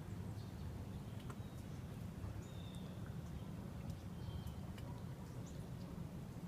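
Small birds chirping faintly now and then, short high chirps every second or so, over a steady low rumble.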